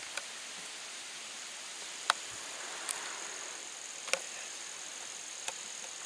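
Insects singing as a steady high-pitched drone over a background hiss, with about five short sharp clicks, the loudest about two seconds in.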